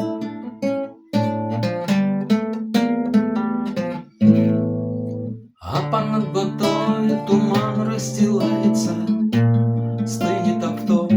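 Acoustic guitar playing an intro of picked and strummed chords, with a short pause about five and a half seconds in before the playing resumes.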